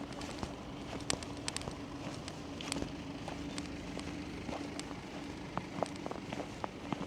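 Footsteps crunching on snow, uneven crisp clicks and crackles over a steady low hum of city background.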